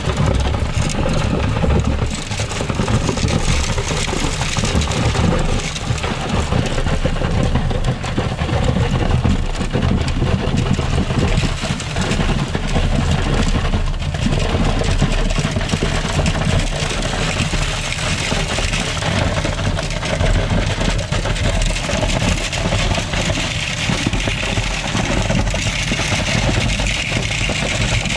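Concrete boom pump truck's diesel engine and pump running steadily as concrete is pumped through the end hose into a drilled pier hole.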